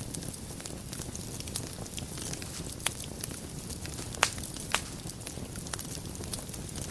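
Wood fire burning in a fireplace: a steady low rumble and hiss with scattered crackles and a few sharp pops, the loudest about four seconds in.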